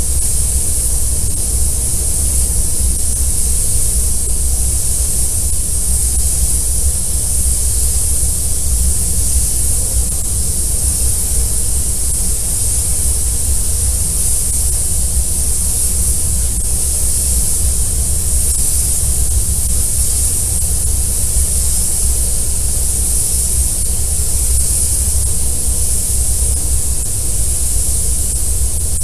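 Compressed-air spray gun hissing steadily as it sprays quartz glass coating onto a car's paint, over a steady low rumble.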